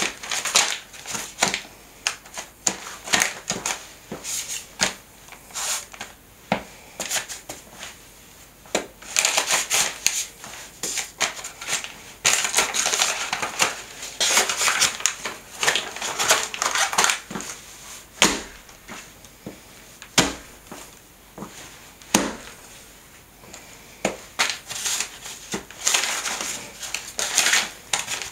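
Adidas sneaker soles stomping and grinding on a printed paper picture on a tile floor: the paper crinkles and crumples in repeated bursts. Near the middle there are a few single, sharper steps on their own.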